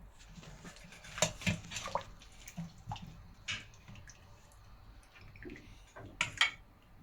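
Utensil clinking and knocking in a pressure cooker pot, with liquid sloshing, as braised bones are lifted out of the sauce. A few sharp clicks are spread through, two of them close together near the end.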